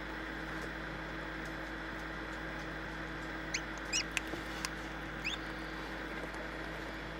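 Newly hatching chicks peeping: a few short, high peeps rising in pitch about halfway through, with two sharp clicks among them, over a steady low hum.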